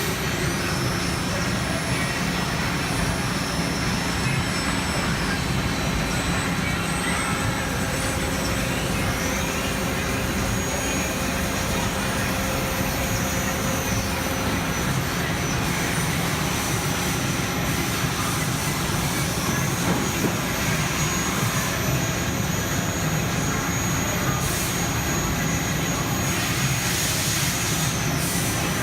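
Daewoo Puma 230MSB CNC lathe running under power: a steady machine hum and noise. High-pitched whines rise, hold for several seconds and fall away several times, as its drives speed up, run and stop.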